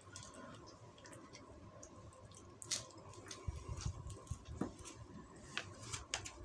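A person chewing a mouthful of nasi uduk, with a few sharp clicks and scrapes of a metal spoon and fork against the paper-lined plate, one about two and a half seconds in and several more past the middle.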